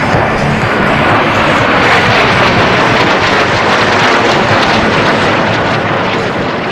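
Snowbirds' CT-114 Tutor jets flying past, a loud jet rush that swells to a peak about two seconds in and fades toward the end.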